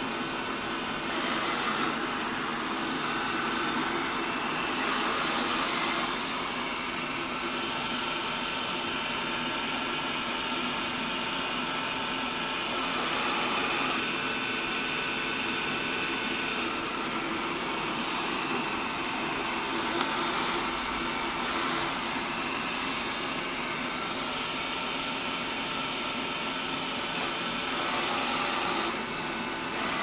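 Xiaomi Roborock S5 robot vacuum running while it is driven by remote control: a steady whir with whining tones that swell and ease as it moves. A small click about two-thirds through.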